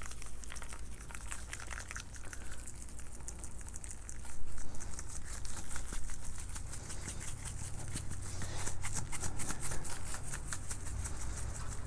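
Dry rub shaken from a shaker bottle onto a raw brisket: a quick run of light rattling taps and pattering granules, louder in spells about four seconds in and again around nine seconds.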